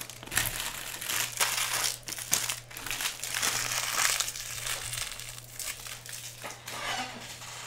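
Trading-card pack wrappers being crinkled and handled by hand, an irregular crackling with many small sharp ticks, as packs are opened during a box break.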